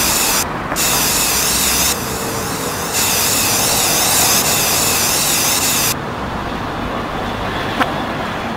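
Aerosol spray-paint can spraying in hisses, with a brief break about half a second in, then cutting off about six seconds in. Street traffic ambience runs steadily underneath, and a short click comes near the end.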